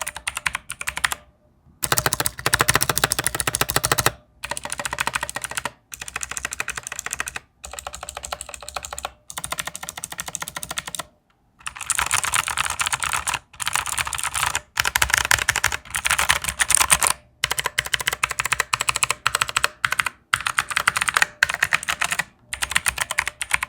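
Fast typing on a Machenike K7 tenkeyless mechanical keyboard with blue switches: a dense run of clicky keystrokes in bursts of one to two seconds, broken by brief pauses. The keys click without rattling.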